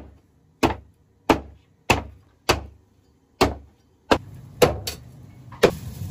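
Meat cleaver chopping pork ribs on a wooden chopping board: about nine sharp, separate chops, roughly one every half second to second.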